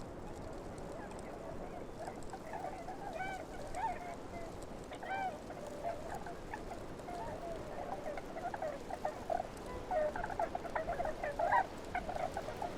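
Many short bird calls from several birds, clustered around one pitch and coming in loose bursts that grow busiest in the last few seconds, over a steady outdoor hiss.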